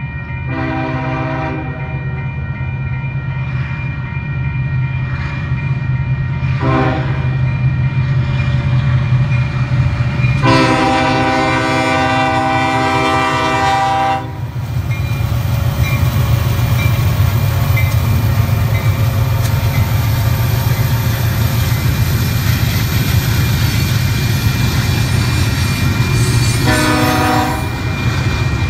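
Union Pacific intermodal freight train led by EMD SD70ACe UP 1983 approaching and passing a grade crossing. The locomotive's air horn sounds four times: a blast of about a second just after the start, a short one at about seven seconds, a long one of nearly four seconds from about ten seconds in, and another of about a second near the end. Under the horn runs the steady low rumble of the diesel locomotive and the double-stack container cars rolling by.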